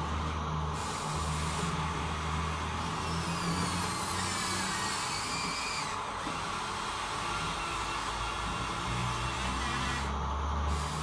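Electric motors of Huina RC model excavators running steadily, a small-motor whine over a low hum, with higher whining tones that shift in pitch for a few seconds in the middle as the machines work.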